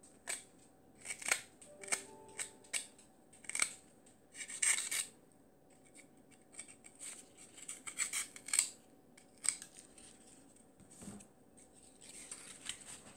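Scissors cutting corrugated cardboard in a string of short, irregular snips, then a softer rustle of the cardboard being handled near the end.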